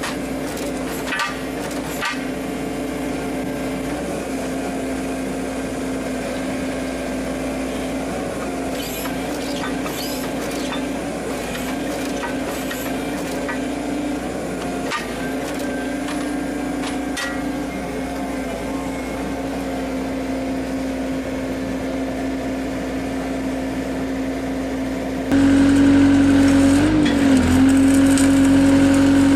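Engine of a road construction machine running steadily, with scattered clicks and knocks over it. About 25 seconds in it cuts abruptly to a louder engine running.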